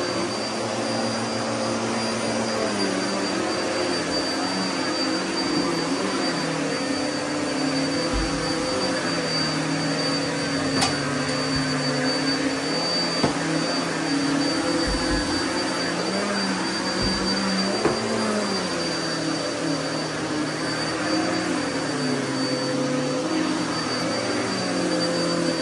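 Upright vacuum cleaner running over carpet, its motor tone wavering up and down as it is pushed along. A few sharp clicks and low thumps come through partway.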